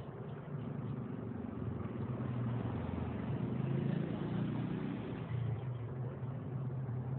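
A motor vehicle engine running steadily, a low wavering hum with no distinct knocks or clicks.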